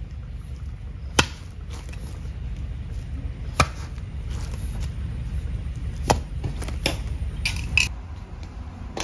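A series of sharp knocks at irregular intervals, about seven in all, over a low steady rumble.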